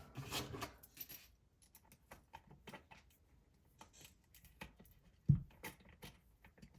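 Scattered small clicks and taps of a metal fastener and spinning-wheel parts being handled, with one louder knock a little past five seconds in.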